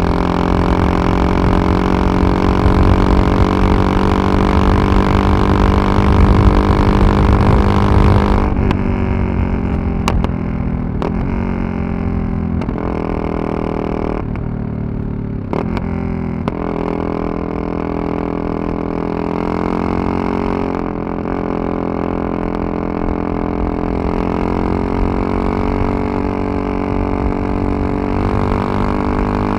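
Yamaha MT-03 660's single-cylinder engine running under way: a steady high note that drops about eight seconds in as the throttle closes, with several sharp cracks over the next few seconds. It then settles to a lower steady note that slowly rises toward the end.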